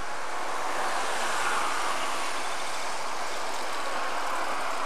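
Small narrow-gauge diesel locomotive running steadily as it approaches along the track.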